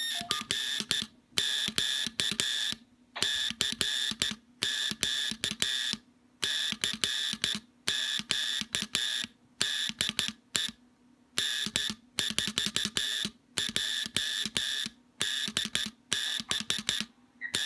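A century-old code practice key and sounder, powered by a 9-volt battery, sending Morse code: a buzzing tone switched on and off in short and long bursts (dots and dashes) with brief gaps between letters.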